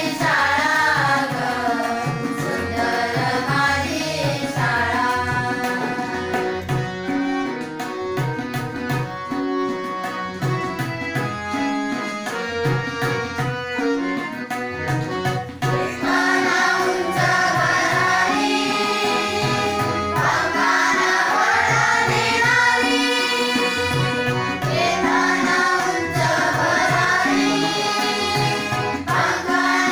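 Girls singing a devotional-style song with harmonium and tabla accompaniment. About five seconds in the voices drop out for a harmonium interlude over the tabla beat, and the singing comes back about sixteen seconds in.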